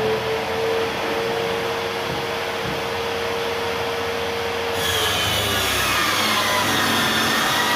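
Table saw running steadily, then cutting through a white board panel from about five seconds in, with a hissing cut and a whine that slides down in pitch as the blade takes the load.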